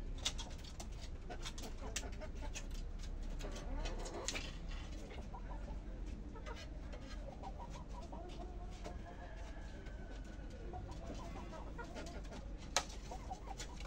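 Roosting chickens clucking in a stream of short notes as they settle on their perch. Scattered clicks run through the first few seconds, and one sharp click comes near the end.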